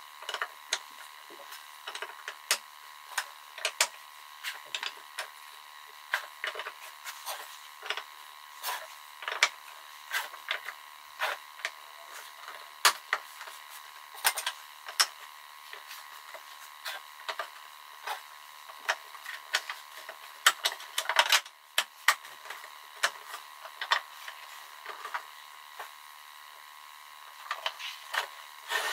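Irregular light taps and clicks of hand work on wood, a few a second, over a faint steady high hum.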